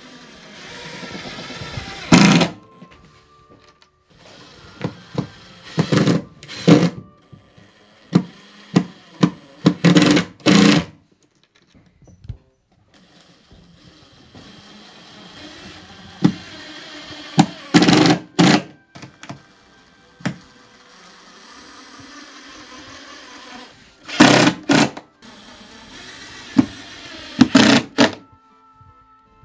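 A cordless power driver driving screws into a wooden window frame: a dozen or so short bursts, each well under a second, with pauses between them, over faint background music.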